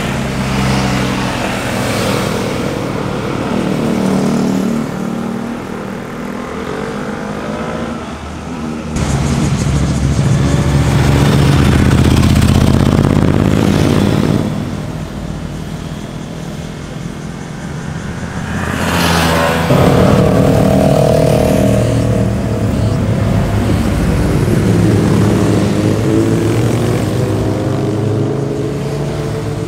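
Motorcycle engines passing through a bend one after another, revving and easing off so the exhaust pitch rises and falls. The sound changes abruptly about nine seconds in and again near twenty seconds in.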